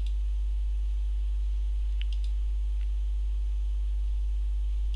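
Steady low electrical mains hum, with a thin high steady tone above it and a few faint clicks about two seconds in.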